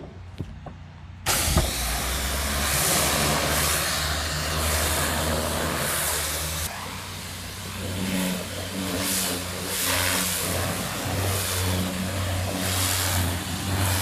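Engine of a 4000 PSI, 8 gallon-per-minute pressure washer running steadily under the hiss of its high-pressure spray rinsing deck boards, starting abruptly about a second in. The hiss swells and eases as the wand sweeps across the boards.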